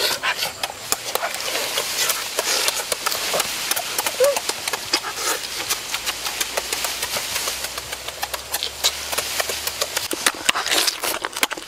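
Crackling and smacking from cooked shrimp being peeled and chewed close to the microphone, many sharp clicks over a steady high hiss.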